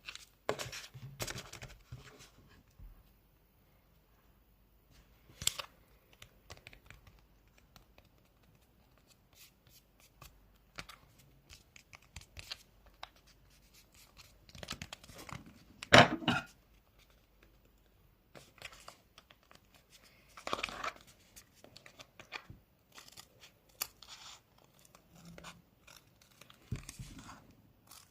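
Crinkling and rustling of a squishy's crinkly wrapping being handled, scratched and pulled by hand close to the microphone. It comes in irregular spurts, loudest about halfway through.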